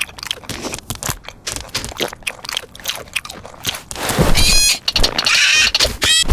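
Cartoon sound effects: quick light clicks and taps, then, about four seconds in, an animated seabird's high-pitched squawks and chattering calls.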